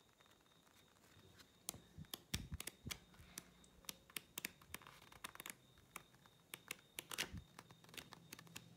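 Paper pages of a flipbook being bent and flicked by hand: faint, irregular clicks and paper rustles, starting about a second and a half in.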